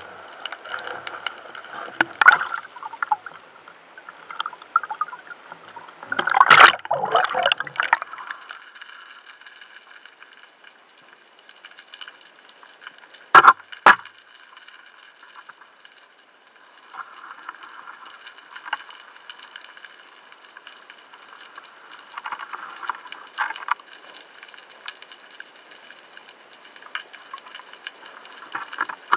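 Underwater water noise heard through a diver's camera: a steady hissing wash with a loud bubbling, splashing burst about six to eight seconds in, and two sharp clicks a little before the middle.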